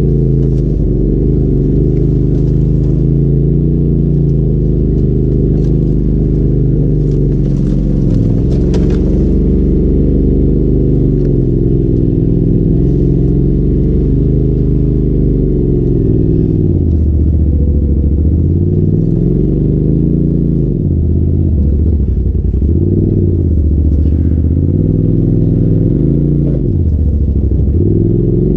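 Polaris RZR Turbo S side-by-side's engine running, its pitch wandering and then, in the second half, dipping and rising again every two to three seconds as the throttle is let off and worked back on. A brief clatter of knocks about a third of the way in.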